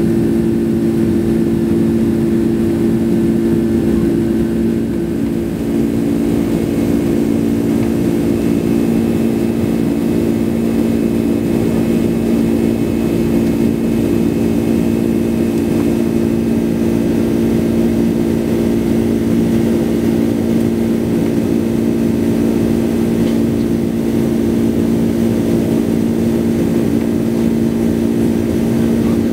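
Twin turbofan engines of a Boeing 767-300 airliner heard inside the cabin during the climb: a steady drone with a low hum of a few held tones.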